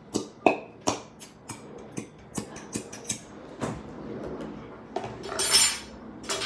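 Sticky homemade glue-and-detergent slime being handled and squeezed: a run of short wet clicks and squeaks, with a louder hissing splutter lasting about a second a little after five seconds in.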